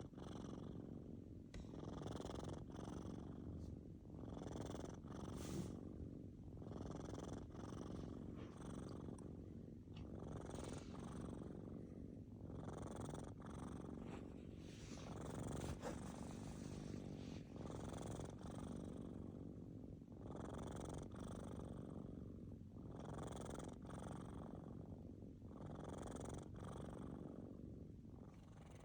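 Sleeping kitten snoring, a purr-like rumble that swells with each breath about every two and a half seconds.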